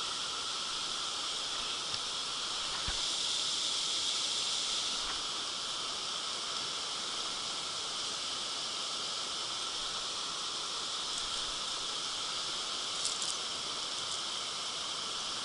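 Steady outdoor background hiss that swells slightly a few seconds in, with a few faint clicks.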